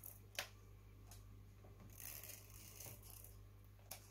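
Tape runner being drawn along the edges of a piece of thin card, laying down adhesive tape: a faint rasp with a few soft clicks.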